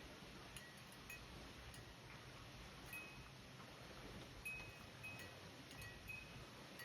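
Near silence: a faint steady background with scattered brief, thin high-pitched tinkles every second or so.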